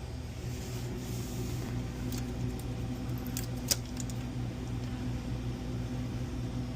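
Steady low hum of the still-powered commercial freezer running, with a few light clicks and rattles from the rocker switch and its wiring being handled, mostly in the middle.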